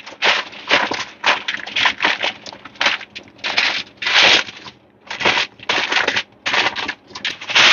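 Aluminium foil being crinkled and folded by hand as it is rolled around a joint of meat: an irregular run of crackling rustles.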